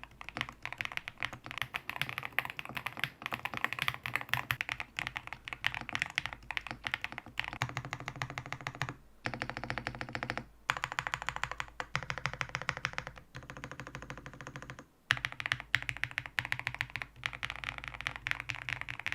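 Fast typing on an Eave65 mechanical keyboard with an injection-molded polycarbonate case and plate, gasket mounted and fully foamed, fitted with Keygeek Y3 switches and PBTfans Rim keycaps. It is a steady run of rapid keystrokes with a few brief breaks. The full foam leaves it sounding a little dead.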